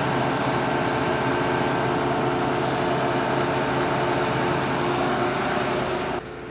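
Combine harvester running at working speed up close: a steady engine hum under the dense whir of the threshing machinery. It starts suddenly and cuts off suddenly near the end.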